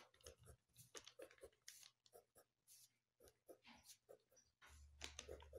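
Faint scratching of a ballpoint pen drawing on paper in short, irregular strokes.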